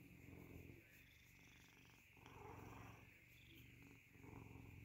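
Tabby cat purring quietly while its head and chin are scratched, the low purr swelling louder about every two seconds.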